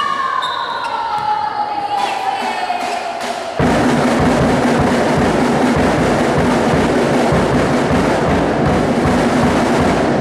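A long tone sliding slowly down in pitch, then about three and a half seconds in, loud fast drumming and percussion starts abruptly and keeps up a steady, dense beat.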